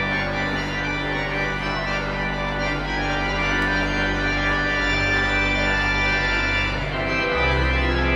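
Organ playing sustained chords over held bass notes; the bass changes about five seconds in and again near the end, where the low notes grow louder.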